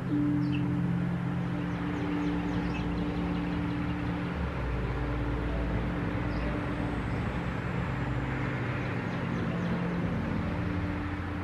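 Steady low rumble and hum, with a few faint, short high chirps.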